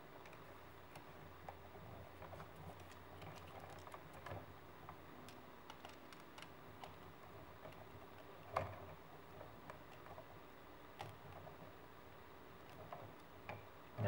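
Faint scattered clicks and ticks of a screwdriver tightening the green ground terminal screw on a wall outlet, with one sharper click about two-thirds of the way through.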